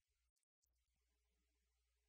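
Near silence: only a faint low hum and hiss in the recording.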